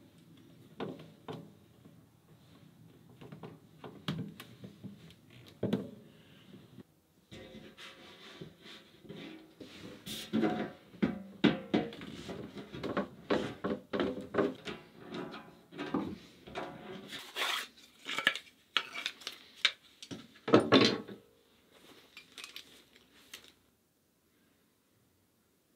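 Handling sounds as a clear plastic hose and a metal hose clamp are fitted onto a stainless steel sink's drain outlet: irregular clicks, clinks and rubbing, dying away near the end.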